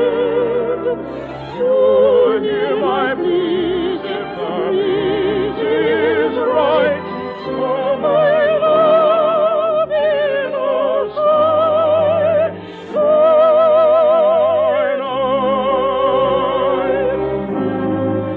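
Operetta music in an old radio recording: an orchestra with a melody line carried in strong vibrato, sounding dull and narrow, with nothing above the mid treble. The music dips briefly about two-thirds of the way through, then carries on.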